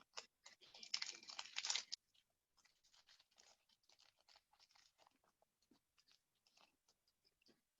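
A foil trading-card pack wrapper being torn open, a crinkly rip lasting about a second and a half, then faint crackling of the wrapper and cards being handled.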